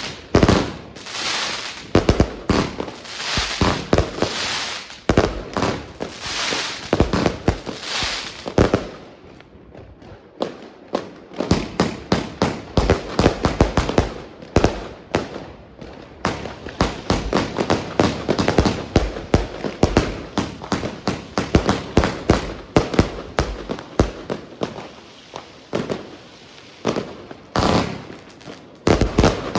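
Consumer fireworks going off in rapid strings of bangs and crackles. The bangs thin out for several seconds about a third of the way in, then come thick again, with one more short burst near the end.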